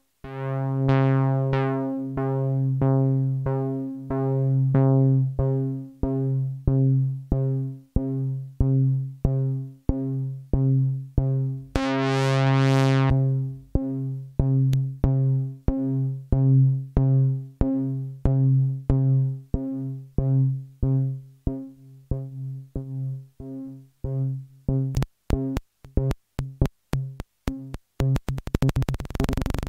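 MFOS Sound Lab Mini-Synth playing one low note over and over, each note swelling and dying away as the AR envelope opens and closes the VCA, about two notes a second. About 12 s in, one longer note turns bright for about a second. Near the end the notes shrink to short clicks that speed up until they blur into a buzz.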